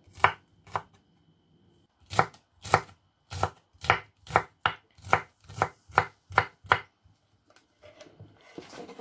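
Kitchen knife dicing okra on a wooden cutting board: sharp chopping knocks, two, then a pause of about a second, then a steady run of about two chops a second that stops about two seconds before the end.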